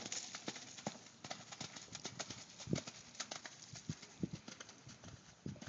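Hoofbeats of a horse cantering on wet, muddy arena footing: a continuous run of dull thuds and clicks.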